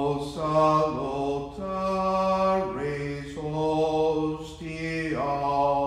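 Slow, chant-like hymn singing in long held notes, with short breaks between phrases; a liturgical hymn at the start of Eucharistic exposition.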